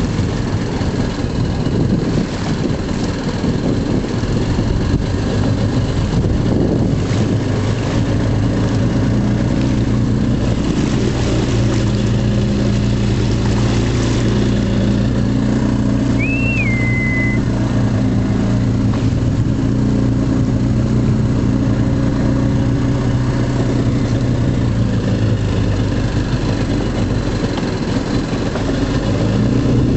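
Boat engine idling steadily under a constant rush of wind and water noise. A brief high chirp about halfway through.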